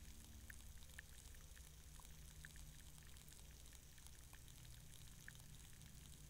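Faint underwater sound of a shallow muddy puddle heard through a hydrophone: sparse sharp ticks and clicks about once a second, over a low steady hum and faint hiss. Such clicks come from bubbling gas in the mud, auger snails and other small unseen sources.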